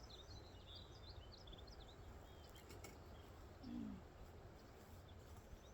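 Faint outdoor ambience: small birds chirping in short high notes, mostly in the first second or so, over a steady low wind rumble.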